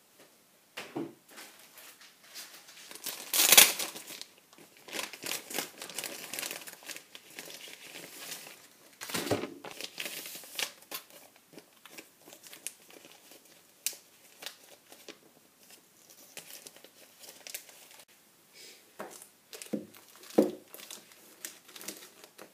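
A paperback manga volume being handled, its paper rustling and crinkling in irregular bursts, with louder knocks about three and a half and nine seconds in.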